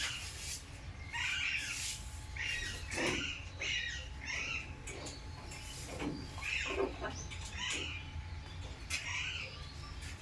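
Parrots squawking, a dozen or so short calls in irregular succession.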